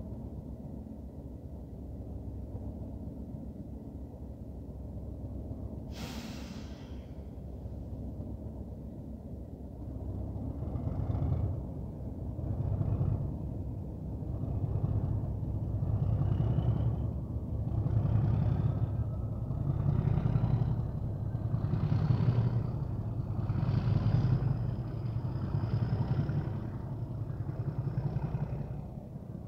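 Class 37 diesel locomotive with an English Electric V12 engine, first idling with a low rumble and a short sharp hiss about six seconds in, then opening up from about ten seconds in as it pulls away. The engine note comes in heavy surges about every two seconds, getting louder, with a rising turbocharger whistle over it.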